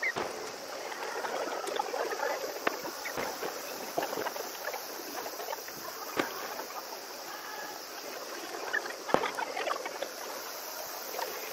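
Fireworks shells bursting in a scattered series of sharp bangs, the loudest about nine seconds in, over a steady busy background of crowd noise. The recording is sped up, so the sounds come short and quick.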